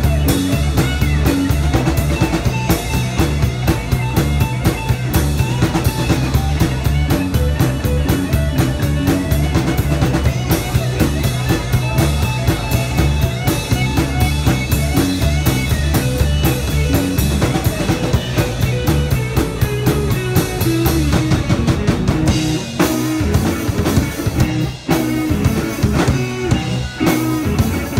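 Live rock band playing: distorted electric guitar over a driving drum kit with bass drum and snare. Near the end the deep bass drops away for a few seconds, then comes back in.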